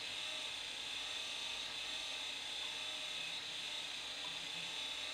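Geared DC motor turning the screw of a home-built plastic filament extruder, running steadily with an even whirr and a high whine.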